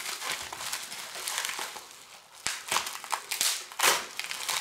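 Plastic bubble-wrap packaging crinkling and crackling as it is handled and turned over, louder in the second half.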